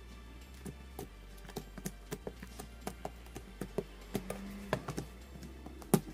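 Soft white glue-and-shaving-foam slime being kneaded and pressed by hand on a hard surface, giving irregular sticky clicks and pops, a few a second, the loudest near the end.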